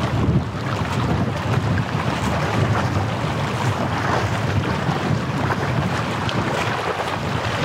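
Wind buffeting the microphone: a steady low rumble that rises and falls in small gusts, over an even rushing hiss.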